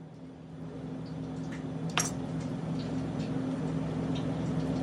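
Wet squishing of an octopus tentacle being cut open and handled on a plastic cutting board, with one sharp click about two seconds in. A steady low hum runs underneath.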